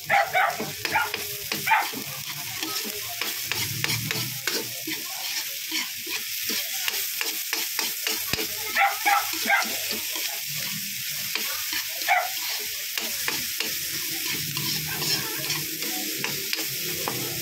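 Chopped scallions, chili, onion, garlic and ginger sizzling in hot oil in a wok while a spatula stirs and scrapes them around. There is a steady sizzle under repeated scrapes and taps of the spatula on the pan, with a few louder strokes.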